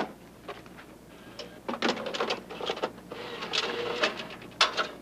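Videotape player being started: a run of mechanical clicks and clunks from its buttons and tape mechanism, then a whirring as the tape loads and runs.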